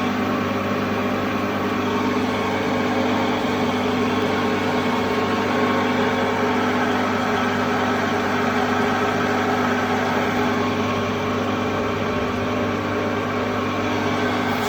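MAHO 400 P tool milling machine running steadily, a constant motor and spindle hum with several steady whine tones over it.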